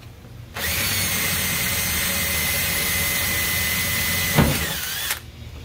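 Cordless drill running at a steady speed with a high whine, drilling a bolt hole through the urethane bumper cover and the fender-well sheet metal. About four seconds in there is a knock and the whine dips, and the drill stops shortly after.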